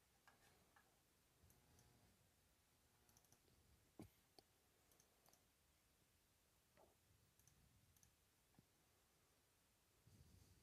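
Near silence with a few faint, scattered clicks; the clearest comes about four seconds in.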